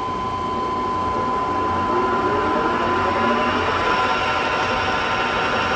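Geared headstock of a 22-inch ProfitMaster gap bed engine lathe running as its spindle and large four-jaw chuck come up to speed: a steady machine hum with gear whine that rises in pitch a few seconds in.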